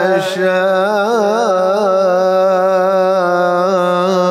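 Male reciter chanting the Quran melodically, drawing out a long held note on the word 'mā' of 'lahum mā yashā'ūn fīhā', with wavering ornaments around the first couple of seconds before settling into a steady tone.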